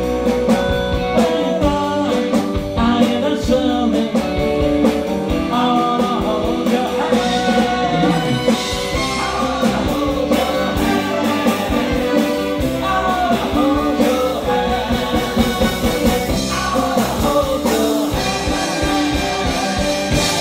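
A male singer singing a song with a live band behind him, drums and guitar included.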